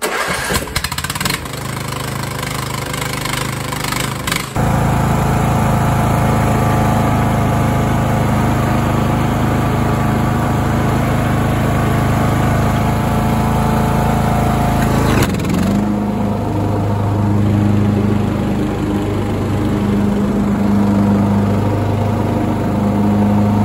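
Craftsman DLS3500 riding mower's 20 hp Briggs & Stratton Intek single-cylinder engine being started. It cranks for about four seconds, catches, and runs steadily. About fifteen seconds in, the engine note shifts and then rises and falls as the mower is driven.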